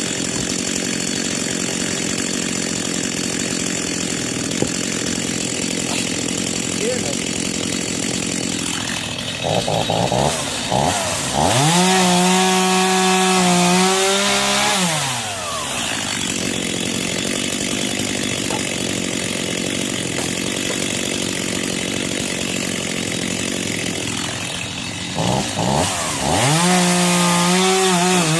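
Two-stroke chainsaw idling, then revved to full throttle about ten seconds in and held for a few seconds as it cuts through the fallen tree's wood before dropping back to idle. Near the end it is throttled up again, the pitch sagging as the chain bites into the log.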